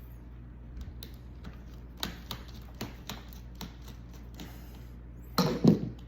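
Scattered light clicks and taps of hands and tools working on a Dell Inspiron 7405 2-in-1 laptop's casing as a part is worked loose, with a louder cluster of knocks near the end.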